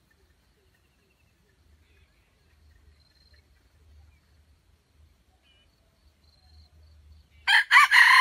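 A red junglefowl rooster crows loudly, starting about seven and a half seconds in, after a stretch with only faint distant chirps. The crow has several bends in pitch and carries on past the end.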